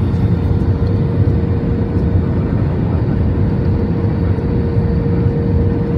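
Steady cabin noise of an Airbus A320 airliner descending to land, heard from a window seat over the wing: a deep, even rush of jet engines and airflow with a steady mid-pitched hum running through it.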